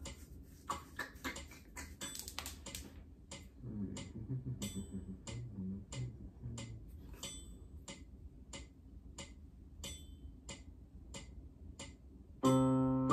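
Metronome clicking steadily at about two beats a second, with a few soft low keyboard notes about four to seven seconds in. Full keyboard chords come back in near the end.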